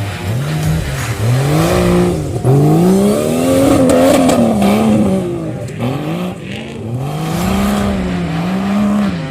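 Off-road 4x4 engine revving up and easing off again and again, its pitch rising and falling in a series of swells, loudest in the middle.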